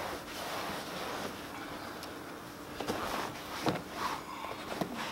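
Towels rustling as they are dragged off a car's rear parcel shelf and bundled up, with a few soft knocks.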